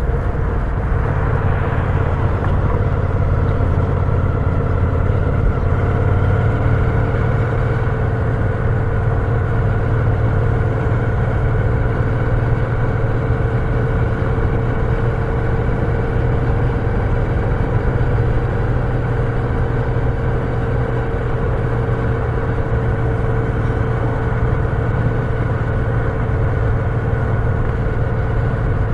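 Moto Guzzi V7's air-cooled transverse V-twin running at a steady cruise, its pitch and level hardly changing.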